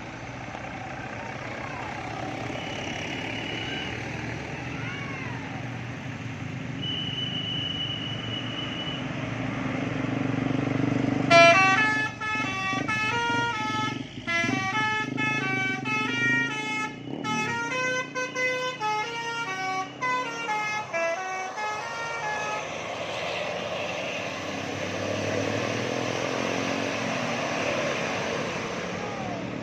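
Bus 'telolet' multi-tone air horn playing the basuri melody as a string of quick stepped notes for about ten seconds, starting just before the loudest point. The bus engine and road noise grow louder before the tune and carry on steadily after it.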